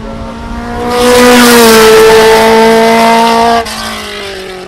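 Racing car engine at high revs, rising to a loud, steady note about a second in as it passes. Near the end it drops sharply in volume and falls in pitch as it moves away.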